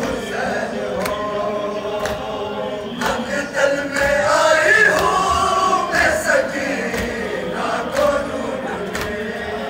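A noha sung by a large chorus of men, with sharp slaps of hands beating on chests (matam) in unison about once a second.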